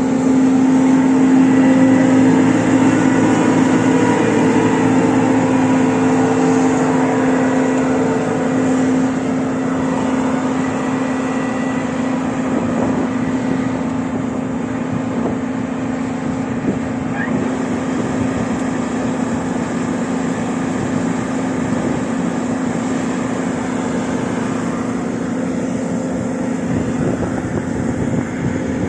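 Combine harvester running at work in a rapeseed crop: a steady machine drone with a strong hum, loudest in the first few seconds and easing off gradually.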